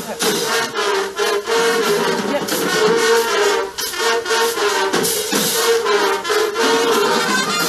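High school marching band playing, the brass section to the fore, with sustained loud chords.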